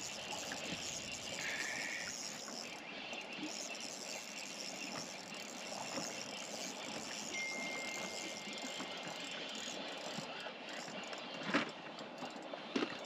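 Steady hiss of wind and water around an open fishing boat, with a faint thin high tone partway through and two short knocks near the end.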